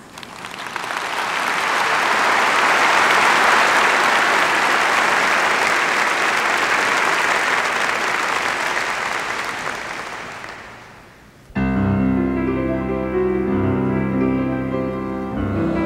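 Congregation applauding, swelling and then fading away over about ten seconds. Near the end a piano starts abruptly, playing the introduction to a choral anthem.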